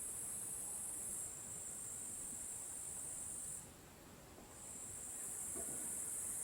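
A steady, high-pitched hiss that dips a little over a second in, fades out for about a second midway, then comes back.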